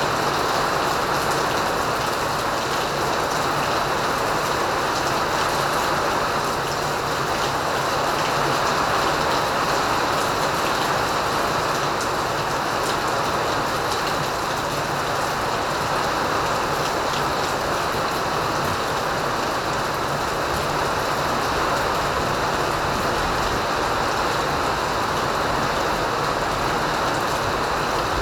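Rain pouring down steadily, an even hiss without breaks.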